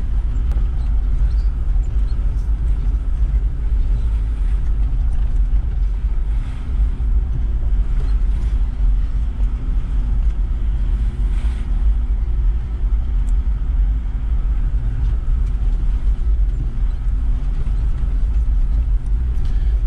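Toyota LandCruiser 76 series four-wheel drive driving down a dirt forest track, heard from inside the cab: a steady engine and tyre rumble with a few faint knocks.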